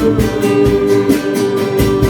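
Music: a song with strummed guitar over a steady beat.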